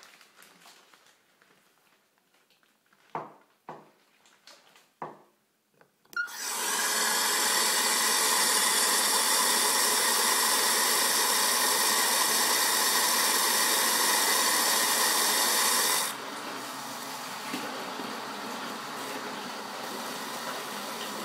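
A few light knocks, then a loud, steady rushing noise starts suddenly about six seconds in and drops to a lower, steady level about ten seconds later.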